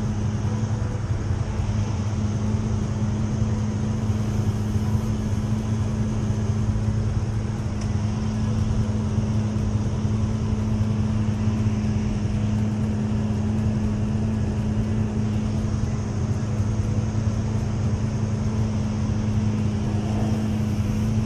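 Vehicle engines idling in slow traffic: a steady low engine hum over road-traffic noise, unchanging throughout.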